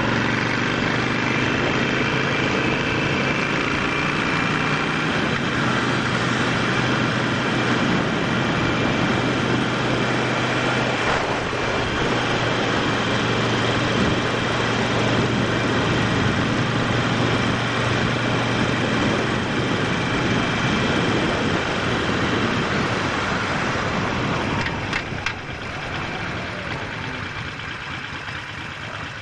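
Harley-Davidson Sportster 48's air-cooled 1200 cc V-twin engine running steadily on the road; about 25 seconds in it gets quieter.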